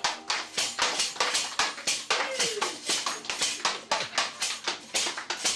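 Steady rhythmic percussive beat, about four sharp strikes a second, most likely hands clapping in time, with no band playing over it. A voice calls out briefly about two seconds in.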